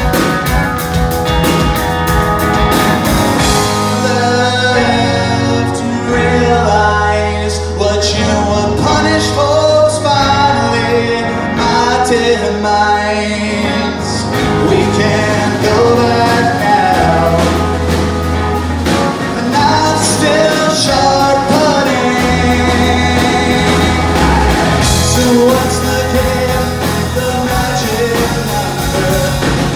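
Live rock band playing: electric guitar, bass guitar and drum kit, with a man singing lead over them.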